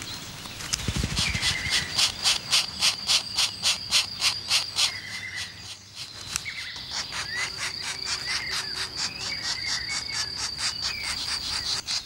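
Outdoor woodland ambience: a rapid insect-like chirring of high pulses, about six a second, then a steady high trill from about halfway through, with short bird chirps over it. A brief low thump comes about a second in.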